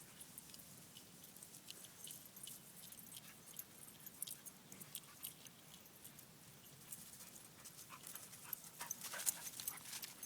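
Faint sounds of dogs at play: scattered light clicks and rustles, busier in the last couple of seconds.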